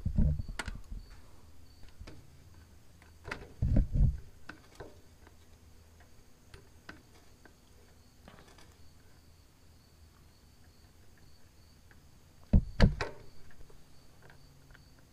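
Hand tool work on a bolt in a truck's clutch housing: a socket on a long extension clicking and clanking against metal, with scattered light ticks, a few heavier knocks about three and a half seconds in, and two loud knocks near the end.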